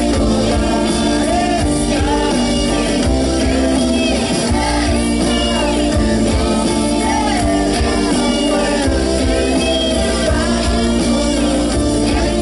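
Live rock band playing loudly: electric guitars over a steady accompaniment, with a voice singing.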